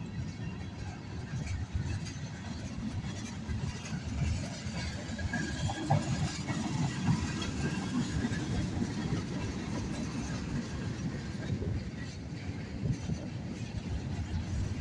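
A CSX mixed freight train's cars rolling past at close range: a steady rumble of steel wheels on the rails.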